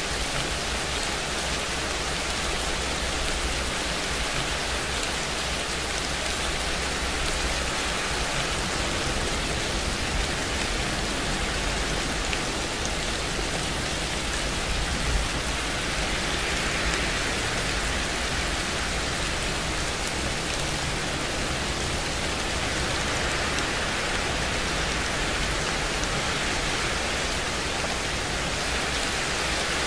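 Steady rain: an even hiss without pauses or changes.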